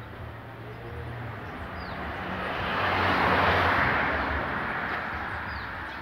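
A vehicle passing by: a wash of noise that swells to its loudest about three and a half seconds in and then fades away.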